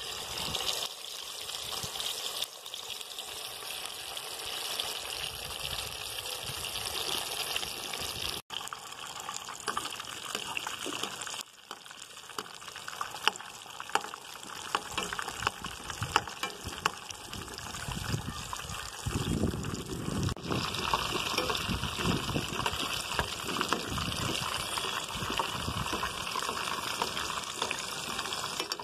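Whole masala-coated fish frying in hot oil in a pan: steady sizzling with scattered crackling pops.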